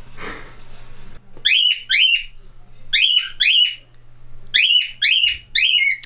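Male cockatiel whistling its courtship song: short rising-then-falling whistled notes, two pairs and then a run of four, about two notes a second.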